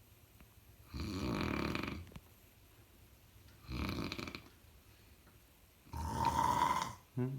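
A sleeping person snoring: three snores about two and a half seconds apart, each lasting about a second, with a short sound just after the third.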